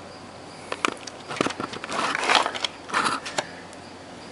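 Small tools and parts being handled on a wooden workbench: a few sharp clicks about a second in, then scraping and rustling, and two knocks around three seconds.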